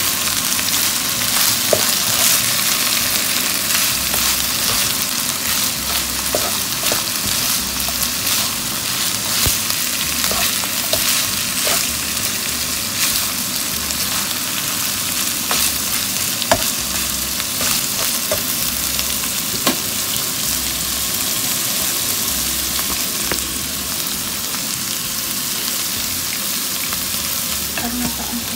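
Ground beef and vegetables stir-frying in a hot pan: a steady sizzle, with frequent light clicks and scrapes as a spatula stirs the food.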